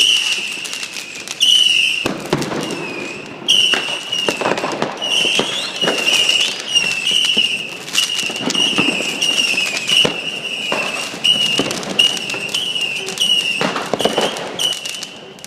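Fireworks going off all around a neighbourhood: irregular bangs and crackles, some near and some far, under a high whistling tone that breaks off and starts again many times.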